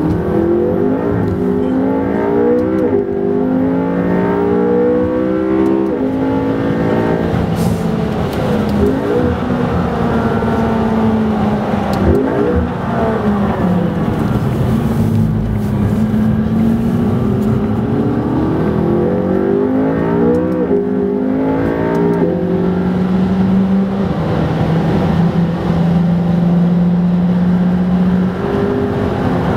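McLaren MP4-12C Spider's twin-turbo V8 heard from inside the cabin, revving hard and changing gear: the engine note climbs through each gear, then drops in steps on the downshifts several times before holding steady near the end.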